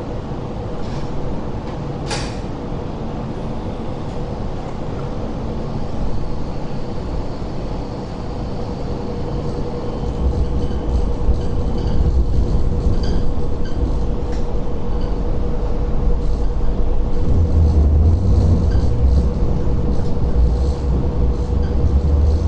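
Interior of a Hong Kong Light Rail Phase 5 light rail vehicle on the move: a steady hum over a low rumble that gets louder about ten seconds in. A single sharp click sounds about two seconds in.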